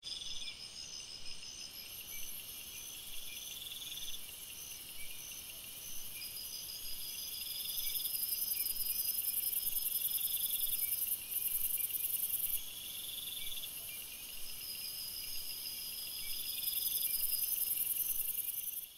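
Insect chorus: several high, pulsing trills at different pitches overlap over a steady, finely pulsing high buzz, growing louder in the middle and again near the end, then stopping abruptly.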